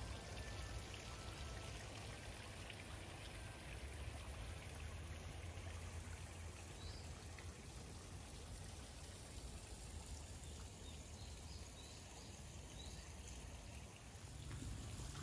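Faint, steady trickling and running water of a garden pond, over a low rumble, with a few faint high chirps in the middle.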